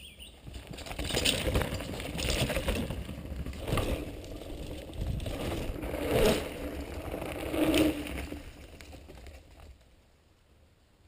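Mountain bike passing close over a dirt and leaf-covered trail: tyres on dirt and leaves, with the bike clattering and rattling over bumps. It builds to a loud pass and fades away over the last few seconds.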